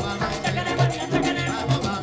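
Live Latin band playing: cuatro, electric bass, congas, timbales and güiro over a steady dance beat with a repeating bass figure, with singing on top.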